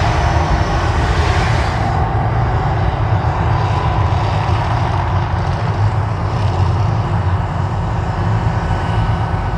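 Gas-fire flames and water jets of the Mirage volcano show, a steady rushing that drops away about two seconds in as the fire dies, over a deep continuous rumble.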